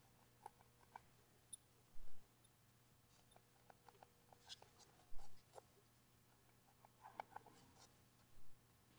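Faint small clicks and rustles of fingers working feather whiskers into pierced holes in the foam and fur muzzle of a puppet, with a few louder taps, over a low steady hum.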